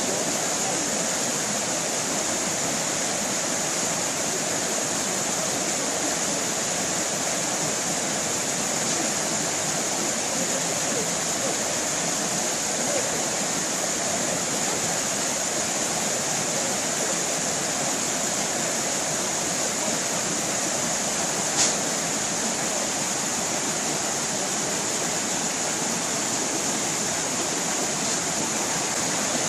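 Stream water running and splashing steadily in an even rushing hiss, with one short click about two-thirds of the way through.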